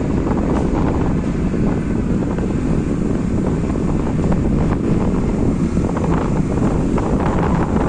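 Heavy municipal maintenance machinery running with a loud, steady low rumble and hiss.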